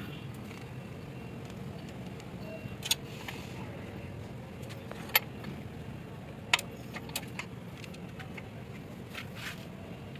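Hand work on a bus engine's belt drive while a new toothed V-belt is being fitted: a steady low rumble with several sharp metallic clicks and taps. The loudest taps come about five and six and a half seconds in.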